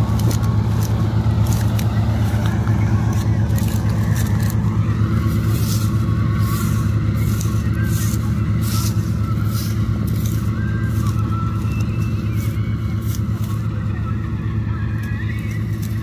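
Hind 999 combine harvester running steadily as it harvests wheat: a constant low engine drone that fades a little toward the end as the machine moves away.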